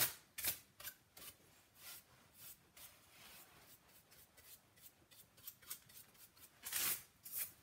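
Natural bristle brush swept in quick strokes across old milled barn wood painted with milk paint, brushing off the sanding dust: a run of faint, scratchy swishes, the loudest near the end.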